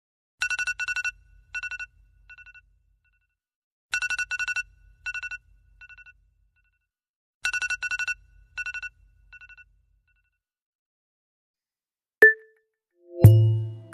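Electronic alarm tone: a fast, high-pitched trilling beep played three times about three and a half seconds apart, each trill trailing off in quieter, fading repeats. After a pause, a short ding sounds near the end, and then a different, lower electronic tone starts abruptly.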